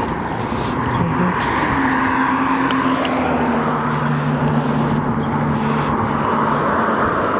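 Road traffic going by: steady tyre noise with the hum of a vehicle engine that slowly drops in pitch as it passes.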